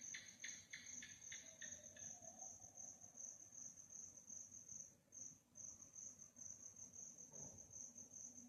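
Crickets chirping at night in a faint, steady, rapid high-pitched trill, with a brief break about five seconds in. A second, lower-pitched pulsing call, about four pulses a second, joins it and stops about two seconds in.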